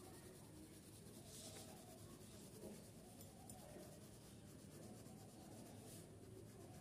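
Pencil lead scratching on paper in quick, faint shading strokes.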